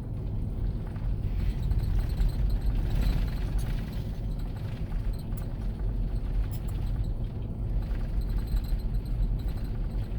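Car driving along a dirt road, heard from inside the cabin: a steady low rumble of tyres and engine with faint rattles.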